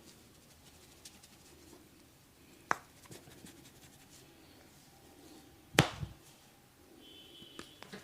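Barber's hands at work in a head and body massage: two sharp cracks or slaps about three seconds apart, the second the louder, with faint rubbing and light ticks between.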